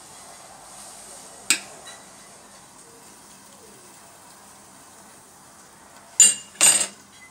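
Metal spoon clinking against a plate of raw shrimp: one sharp click about a second and a half in, then two louder, ringing clinks close together near the end, over a faint steady hiss.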